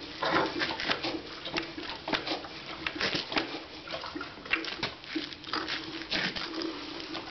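Irregular clicks and scuffs of someone shifting about in boots on a concrete floor beside a motorcycle, with no engine running.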